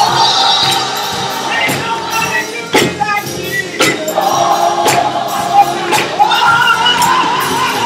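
Gospel choir and a soloist singing together, sustained sung notes with a steady beat of sharp percussive hits about once a second.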